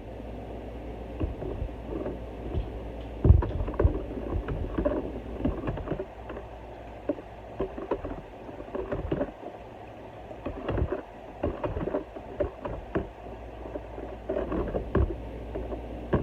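Kitchen handling sounds: many irregular light knocks and clatters over a steady low rumble.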